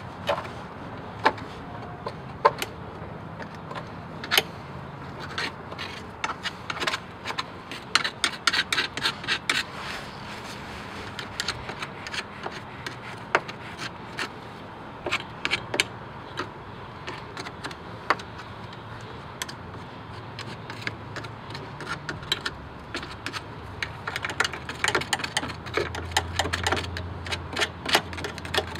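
A hand tool scraping and chipping dried crud off a car's power steering rack: irregular clicks and scratches, with quick runs of rapid ticks in places.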